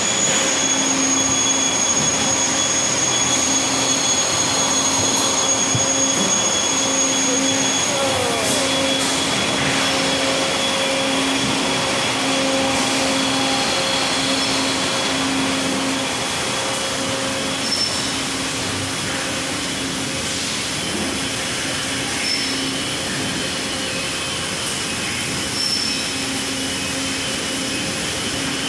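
Steady industrial hall noise: machinery and ventilation running continuously, with a few steady whines over it and a low hum that pulses on and off; a high whine stops about eight seconds in.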